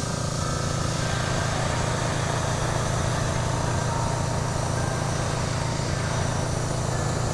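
Airbrush spraying paint in one continuous pass: a steady hiss of air and paint, with a low hum from its air compressor beneath.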